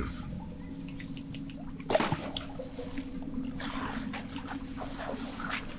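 Steady high chirring of crickets. About two seconds in, water starts splashing and pouring down as an Asian elephant sprays water over itself with its trunk.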